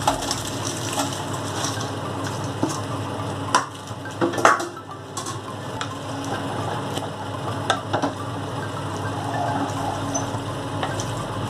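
A wooden spatula stirring and turning fried vegetables through thick sauce in a metal wok, with scraping and a few sharp knocks against the pan, the loudest about four and a half seconds in, over a steady background hum.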